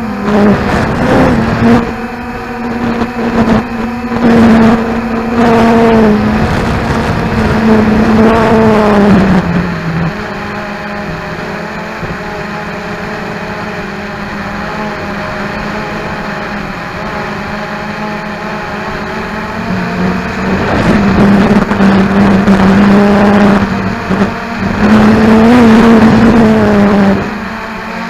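Cheerson CX-20 quadcopter's motors and propellers whining in flight, the pitch rising and falling with throttle changes. The sound drops lower and quieter from about ten seconds in, then climbs again near twenty seconds. Gusty wind buffets the onboard camera's microphone.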